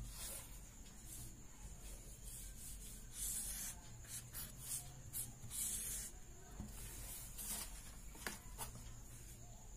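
Pen scratching on paper in short strokes, writing and then ruling the lines of a box. A couple of faint clicks come near the end.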